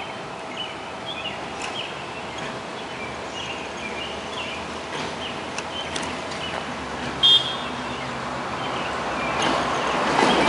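Birds chirping over a steady faint hum, then a vintage streetcar's running noise growing louder over the last second or two as it approaches along the track. About seven seconds in there is a brief, loud high-pitched tone.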